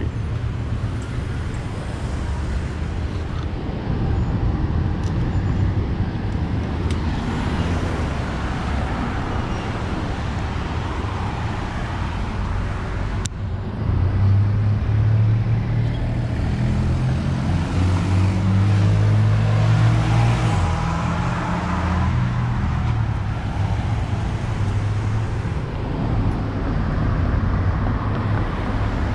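Street traffic at a city intersection: cars passing and waiting at the lights in a steady hum. From about halfway through, a nearby vehicle's engine drones louder for several seconds.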